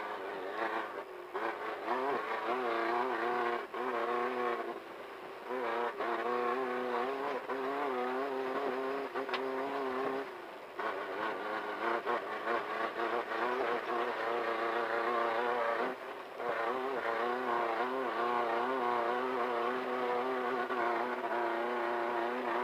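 Class 1500 desert race car's engine running hard at high revs, its pitch wavering up and down, with short drops in level about five, ten and sixteen seconds in.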